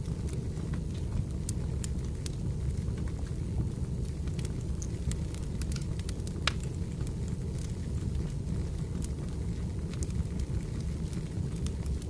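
Wood fire crackling: irregular pops and snaps over a steady low rumble, one sharper pop about six and a half seconds in.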